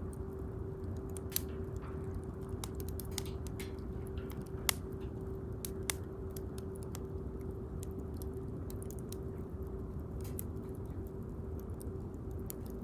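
Wood bonfire crackling: irregular sharp pops and snaps, a couple louder than the rest, over a steady low rumble and a faint steady hum.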